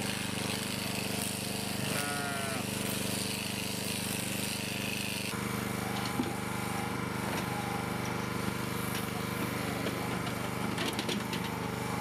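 Electric sheep shears running with a steady machine drone while a sheep is shorn. A sheep bleats once about two seconds in.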